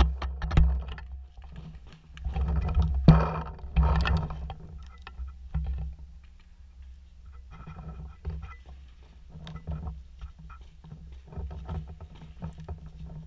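Movement noise of a paintball player scuffing and rustling along a log bunker wall, with a steady low rumble on the microphone. A few sharp knocks stand out in the first few seconds, then the rustling gets quieter.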